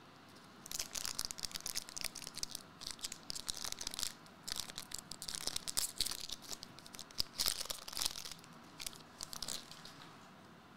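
Foil trading-card booster pack being torn open and its wrapper crinkled, a dense irregular crackle that starts about a second in and stops near the end.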